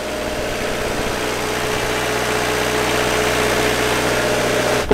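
Engine-driven generators running steadily, a constant engine drone with a steady hum that grows slightly louder.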